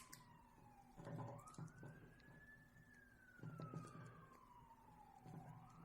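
Faint, distant wailing siren, as from an emergency vehicle: the pitch climbs quickly about a second in, falls slowly over about four seconds, and climbs again near the end. A few faint clicks can also be heard.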